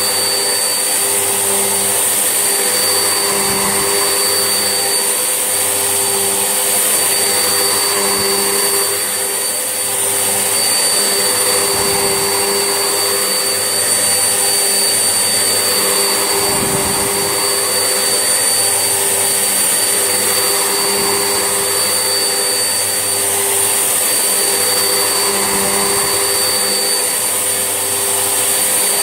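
Vax Essentials vacuum cleaner running steadily, its motor a constant whine. A low rumble swells and eases every four seconds or so as it is pushed back and forth over the floor.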